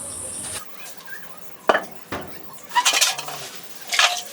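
Metal pots and utensils clinking and clattering: several sharp knocks with a short ring after them, spread over a few seconds.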